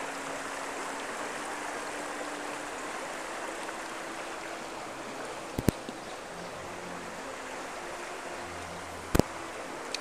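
Shallow stream rippling steadily over stones. A sharp double click comes a little past halfway and a louder single click near the end.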